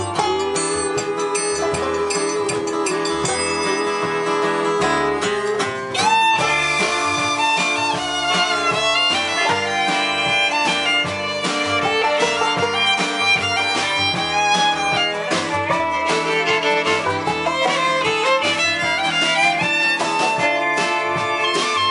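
Acoustic string band playing: a bowed fiddle carries the melody over plucked strings keeping a steady rhythm.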